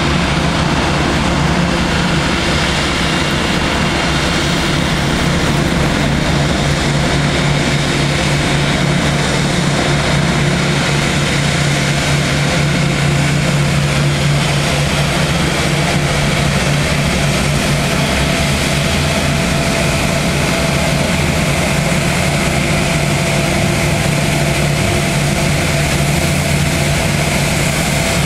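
Boeing 787-8 Dreamliner's two turbofan engines running at taxi idle: a steady low hum with faint higher whining tones above a broad rush.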